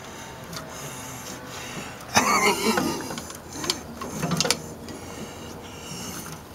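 Small clicks, rattles and scraping of metal parts as the choke rod, its spring and washers are worked into place by hand. There is a louder, rougher scrape about two seconds in.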